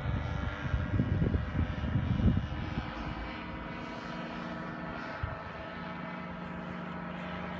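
Paramotor engine running steadily at an even pitch. Low rumbling buffets cover it during the first couple of seconds.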